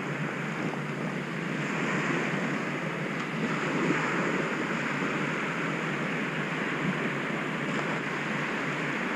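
Small surf waves breaking and washing up a flat sandy beach: a steady rushing hiss that swells a little a few seconds in, with wind on the microphone.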